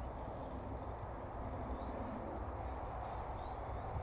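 Steady, distant rumble of an Airbus A321neo's Pratt & Whitney geared turbofan engines as the airliner flies high overhead, with a few faint short bird chirps over it.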